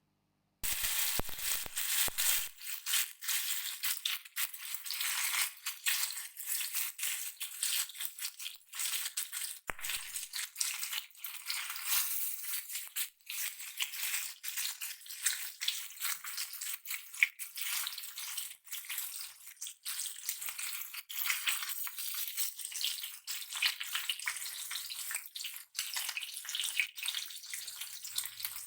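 Small marinated fish frying in hot oil in a pan: a dense crackling sizzle that starts suddenly about half a second in as the fish go into the oil. The sizzle is the sign that the oil is hot enough for frying.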